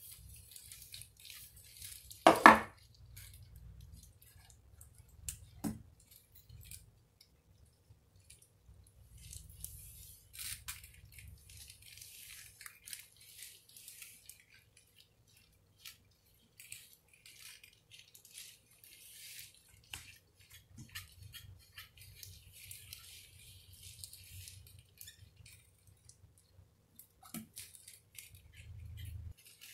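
Aluminium foil crinkling and rustling in short, scattered bursts as strips are folded around sections of hair, with a sharp clack about two seconds in and a fainter one near six seconds.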